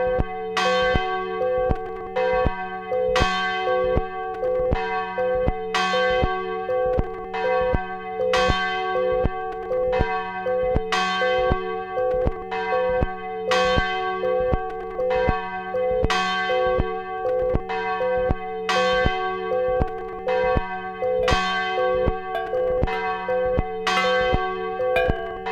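Church bells pealing from a recorded bell archive: several bells struck in an even, rapid sequence, about two strikes a second, their ringing overlapping into a continuous hum under the strikes.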